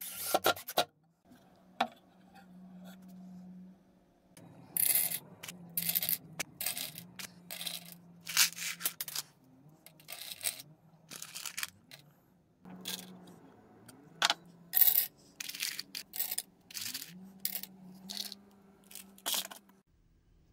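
Screws dropped by the handful into a metal frying-pan bin, clinking and clattering in many short irregular bursts from about four seconds in. A brief clatter at the very start.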